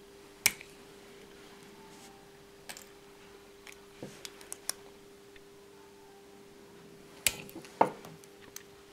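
Nail tip cutter snipping through plastic false nail tips: scattered sharp clicks, the loudest about half a second in and two close together near the end, over a faint steady hum.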